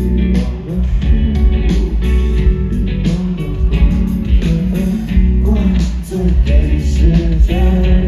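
Live indie rock band playing through a large outdoor PA: a male voice singing over guitars, bass and drums, with a heavy, loud low end.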